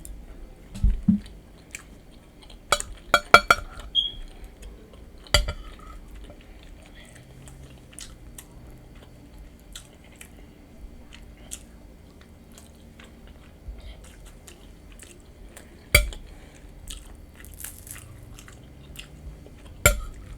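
A person eating loaded nachos close to the microphone, with crisp crunches as chips are bitten and wet chewing in between. The loudest crunches come in a cluster about three seconds in, then singly about five, sixteen and twenty seconds in.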